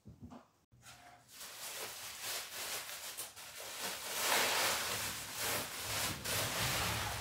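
Plastic bubble wrap rustling and crinkling as it is handled and pulled out of a packing box, growing louder about four seconds in.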